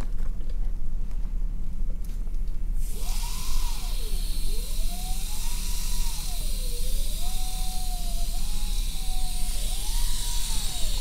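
Dental hygiene handpiece with a prophy cup starting up about three seconds in and running, a hissing whine that wavers up and down in pitch as its speed changes under the foot rheostat while the cup polishes the teeth. A steady low hum runs underneath throughout.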